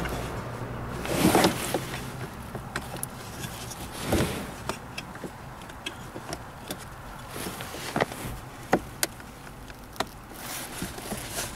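Hands working at the plastic heater blower housing and its bracket under a Seat Ibiza 6J dashboard: scattered sharp plastic clicks and knocks, with two louder rustling bumps about one and four seconds in.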